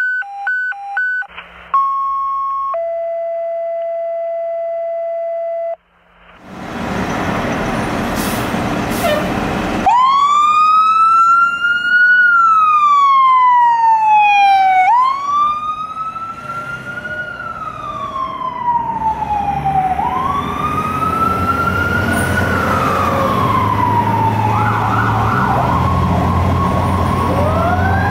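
A series of electronic beeps and long steady tones, then a fire engine's siren winding up and down in slow, smooth rises and long falls, over and over. Near the end come short horn blasts and a low engine rumble.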